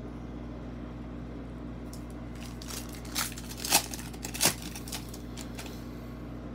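Foil trading-card pack wrapper crinkling and being torn open by hand, with a few sharp rips and crackles in the middle.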